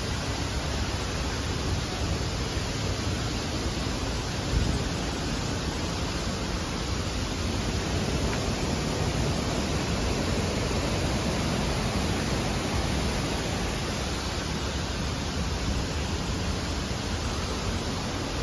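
Steady, even rushing of falling water, with one short low thump about four and a half seconds in.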